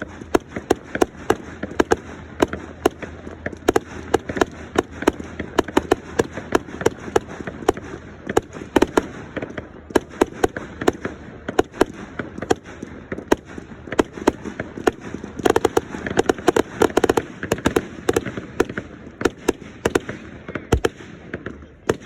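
Fireworks going off in a rapid, unbroken string of sharp bangs and crackling pops, several a second, growing busiest about two-thirds of the way through.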